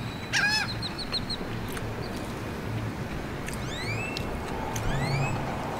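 Birds calling: a harsh, layered call about half a second in, followed by a quick run of five or six short high notes, then two rising whistles near the end.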